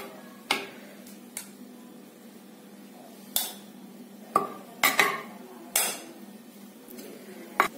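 A steel spoon scooping cooked rice into a clay pot, with about nine sharp knocks and scrapes of the spoon against the pot. Several knocks ring briefly and metallically.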